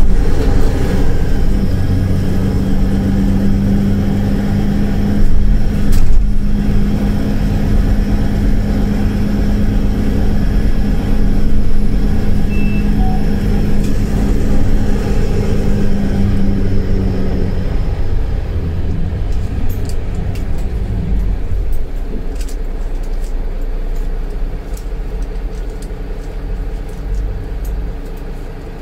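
Mercedes-Benz Citaro C2 LE Ü city bus heard on board while under way: a steady drive hum with a held tone that drops away about two-thirds through. The sound then grows gradually quieter, with a few light clicks near the end.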